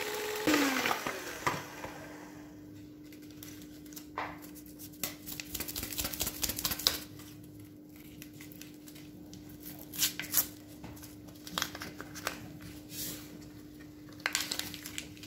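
Scattered light clicks and knocks from handling a hand mixer and a plastic mixing bowl, over a faint steady hum.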